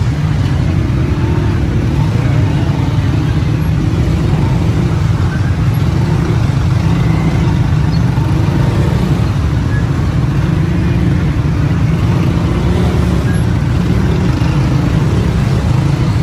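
Steady running noise of a motorcycle on the road, a constant low rumble with no letup or change in speed.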